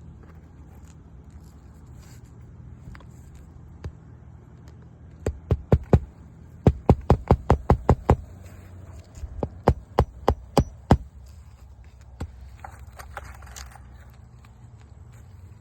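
Hand hammer driving roofing nails into asphalt shingles: three runs of quick, sharp blows, about four, then nine, then six, between about five and eleven seconds in. A steady low hum runs underneath.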